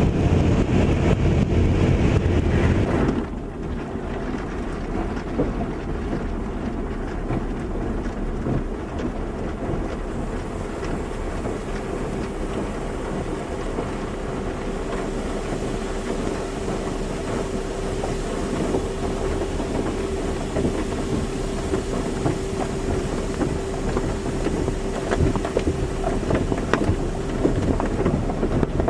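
Automatic car wash running: a continuous rush of water spray and machinery. It is heavier for the first three seconds, then drops to a steadier, quieter wash, and a steady motor hum joins about twelve seconds in.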